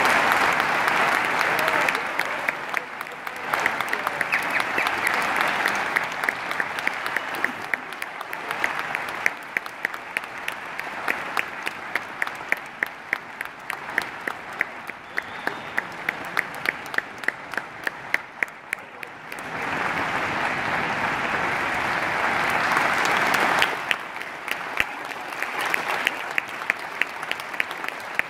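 Large arena crowd applauding, with many hands clapping together in time at about two claps a second. The applause swells at the start and again for a few seconds past the middle.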